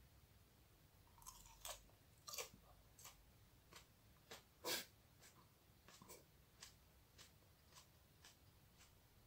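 A person chewing a small, juicy hot chili pepper with the mouth closed. Faint crunchy, wet clicks come about twice a second from about a second in, the loudest about halfway through.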